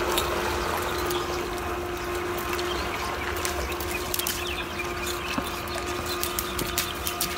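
Gill net and its plastic floats rustling and clicking as the net is paid out by hand, over water lapping. A steady whine from the electric motor of the small remote-control boat towing the net out weakens about three seconds in as the boat draws away.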